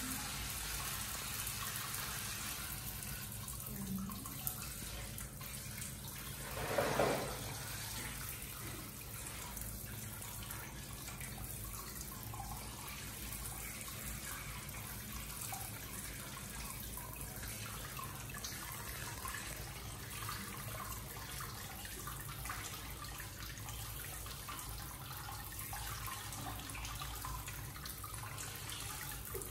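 Water trickling and splashing off a wet baby monkey, held in cupped hands, into a small plastic tub below, with hand-washing rubs and dripping. There is one brief louder noise about seven seconds in.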